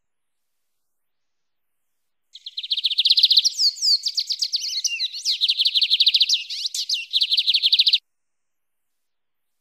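Lined seedeater (bigodinho) singing its wild-type 'mateiro' song: a fast trill of repeated high notes with a few sweeping notes in the middle. It starts a couple of seconds in, lasts about six seconds and cuts off abruptly.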